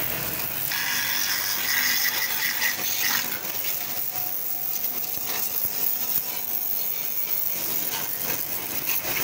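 Pressure washer jet blasting dried cement off a metal handcart frame: a steady hiss of water striking metal, louder and sharper for a couple of seconds near the start.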